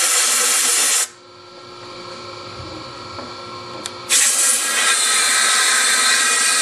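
Compressed-air blow gun hissing in two strong blasts into a lathe collet. The first cuts off about a second in, and the second starts about four seconds in and keeps going.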